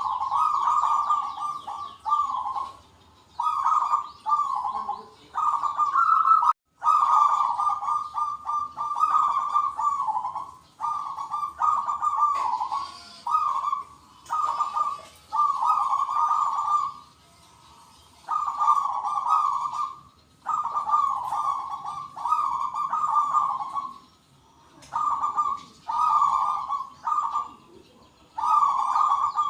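Zebra doves (perkutut) cooing, one rolling call phrase after another with short gaps as several birds answer each other, over fainter high chirping. The sound cuts out completely for a moment about seven seconds in.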